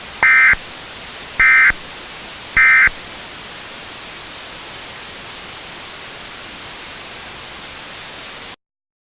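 Emergency Alert System end-of-message signal: three short, harsh bursts of SAME digital data about a second apart, over steady static hiss that cuts off suddenly near the end.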